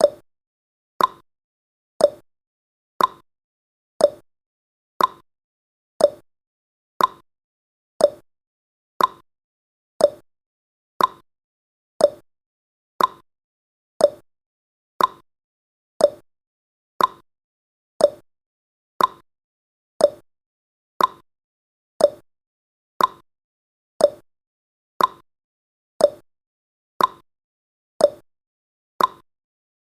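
Countdown timer's ticking sound effect: one short, sharp tick every second, perfectly regular.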